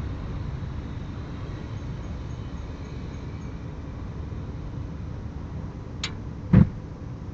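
A sharp click followed about half a second later by a single heavy, low bang, over a steady low background rumble.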